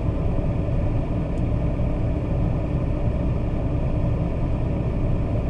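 Vehicle engine idling steadily: an even, low hum with no change in pitch or level.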